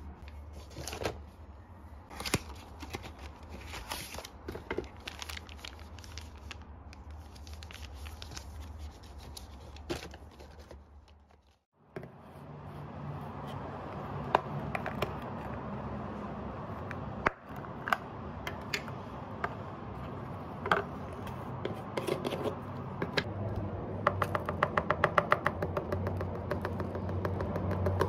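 Hands handling packaging and containers: packets rustling and clicking against each other, then after a sudden cut, plastic containers tapped and set down on a wooden table, with a fast run of small clicks near the end.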